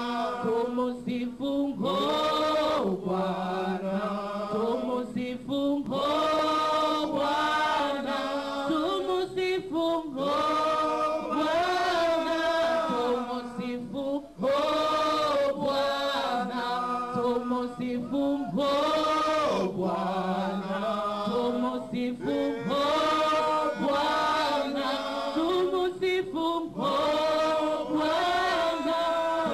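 Group of church worship singers chanting a repeated praise song together into microphones, phrase after phrase.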